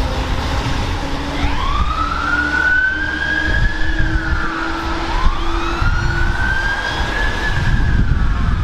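Fire appliance siren on wail, rising and falling twice, over the heavy truck's engine, whose note climbs during the first few seconds as it pulls away.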